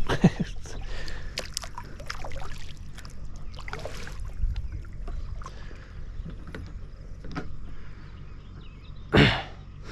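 Water lapping and small knocks around a small boat on a lake, with a steady low rumble. One louder, broader burst comes about nine seconds in.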